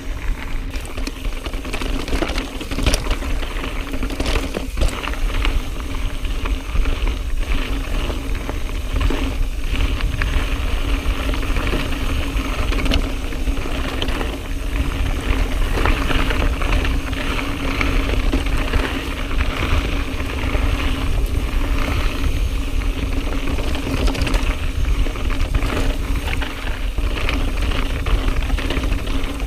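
YT Jeffsy full-suspension mountain bike riding over a dry, rocky dirt trail: continuous tyre crunch and rumble with frequent clicks and knocks from the chain and frame rattling over stones, and wind on the microphone.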